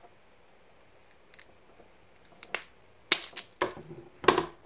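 A self-adjusting wire stripper clicking and snapping as it grips and strips the insulation off a wire. A couple of light clicks come about two and a half seconds in, followed by three louder snaps in the last second and a half.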